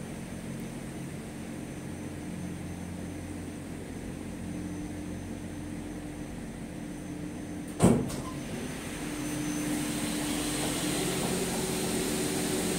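Funitel gondola cabin rolling slowly through the station over the drive tyres, a steady mechanical hum with low droning tones. About eight seconds in a single sharp clunk as the cabin's doors are pushed open, after which the station machinery sounds louder and fuller.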